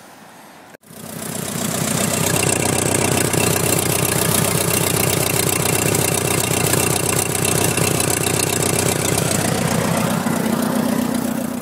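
Vintage red farm tractor's engine running steadily at low speed, an even stream of firing pulses. The sound comes in about a second in.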